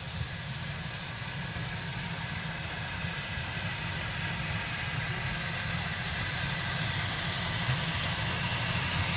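Steam locomotive approaching along the line, its rumble and hiss growing steadily louder.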